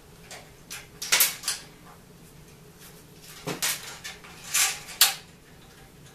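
Light clicks and clatter of hands handling loose wiring and plastic wire nuts in the metal channel of a stripped fluorescent light fixture. The sharp taps come about a second in and again several times between three and a half and five seconds in.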